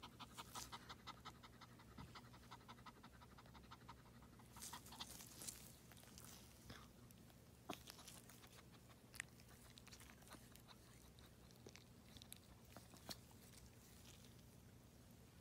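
Yorkshire terrier mother panting fast and evenly in labour for the first few seconds, then stopping; faint scattered clicks follow.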